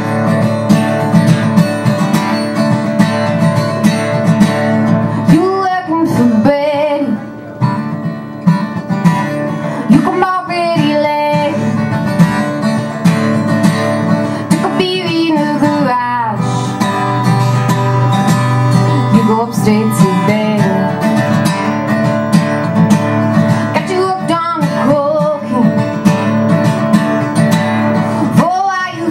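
Acoustic guitar strummed steadily, with a woman singing over it in phrases that come in about five seconds in and recur every few seconds.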